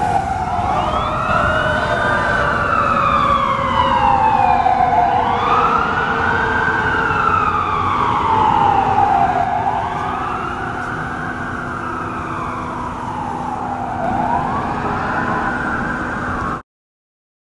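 Fire apparatus siren wailing in a slow rise and fall that repeats about every four seconds. A second siren overlaps at the start, and city traffic runs underneath. The sound cuts off suddenly near the end.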